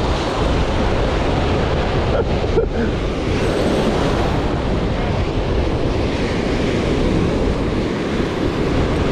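Ocean surf breaking and washing through the shallows in a steady rush, with wind buffeting the microphone.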